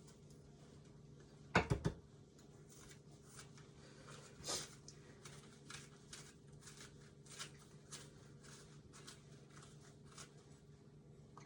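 Knife tip poking and scraping seeds out of a small watermelon cucumber: a run of short, light scratches, with a quick cluster of three knocks about one and a half seconds in.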